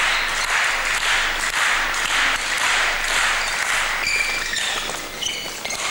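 Badminton doubles rally in a sports hall: sharp racket strikes on the shuttlecock over a steady murmur of crowd noise, with short high shoe squeaks on the court mat about four to five seconds in.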